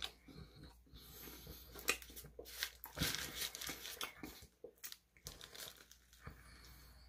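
The checkered paper wrapper around a shawarma wrap crinkles as the wrap is handled and bitten into, with eating sounds close to the microphone. The crinkling is busiest about three seconds in.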